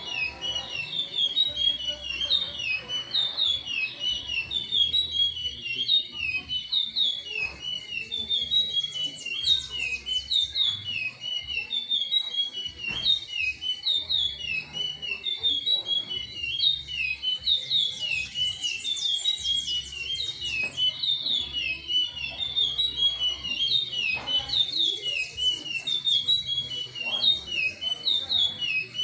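Curió (chestnut-bellied seed finch) singing a long, unbroken run of rapid whistled notes.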